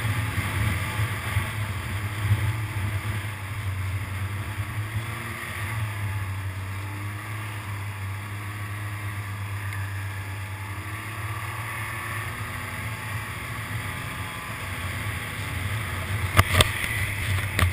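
Snowmobile engine and track running steadily under way, close to a camera mounted on the machine, with a wavering engine drone. A few sharp knocks near the end.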